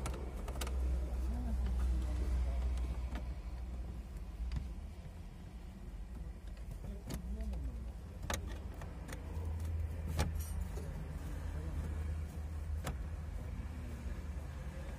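Scattered light clicks and small metallic rattles from hands and tools working on the bared steering column of a Daewoo Nexia, over a low rumble that comes and goes.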